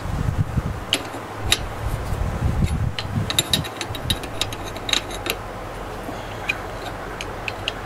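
Open-end wrenches clicking against brass flare nuts on a brass tee fitting as the nuts are snugged up on copper propane line: a string of scattered sharp metal clicks. A low rumble runs under the first few seconds.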